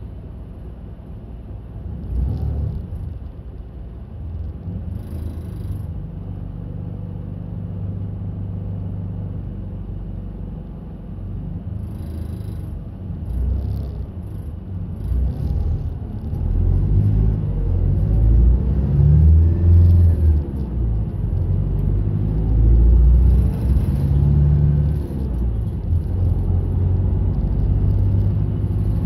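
A route bus's engine heard from inside the cabin, running under way with a low rumble. The engine note rises and falls, and the sound grows louder from about halfway through, with a few short rattles.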